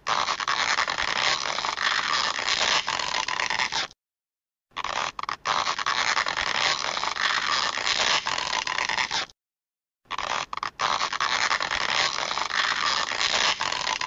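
Stretching sound effect: a noisy, strained sound about four and a half seconds long, played three times with a short silent gap between each.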